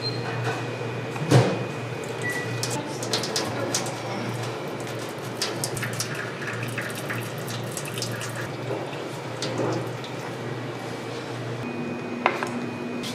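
Cooking water poured off instant ramen from a paper bowl into a stainless steel sink, splashing and pattering on the steel while chopsticks hold the noodles back. There is a loud knock about a second in, the loudest sound, and a sharp click near the end, over a low steady hum.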